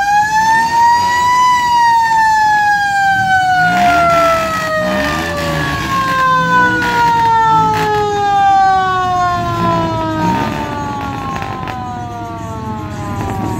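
A siren giving one long whoop: its pitch climbs quickly, peaks about a second and a half in, then falls slowly and steadily for about ten seconds. A lower rise-and-fall sound repeats about once a second underneath.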